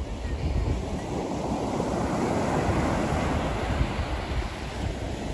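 Ocean surf breaking and washing up a sandy beach, the rush of water swelling in the middle, with wind rumbling on the microphone.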